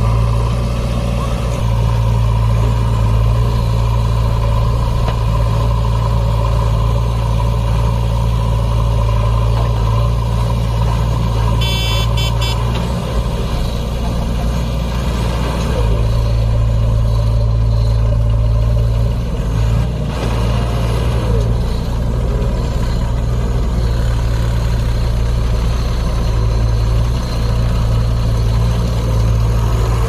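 Heavy diesel engines of a JCB 3DX backhoe loader and a loaded tipper truck running steadily under load as the backhoe's bucket pushes the truck stuck in sand. A short burst of rapid clicking comes about twelve seconds in.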